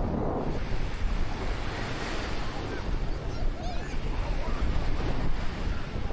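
Black Sea surf washing onto the beach, a steady rush of waves, with wind buffeting the microphone.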